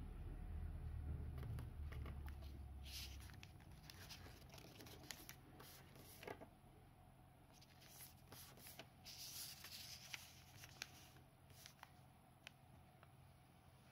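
Faint rustling and crinkling of origami paper being folded and creased by hand, with a few short sharp ticks. A low hum stops about three seconds in.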